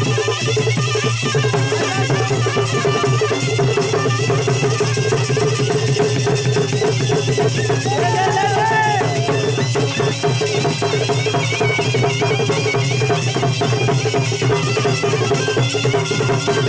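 Gudum baja folk band playing: large gudum drums beating a fast, steady rhythm with clashing hand cymbals, and a shehnai-type reed pipe playing a wavering melody over them.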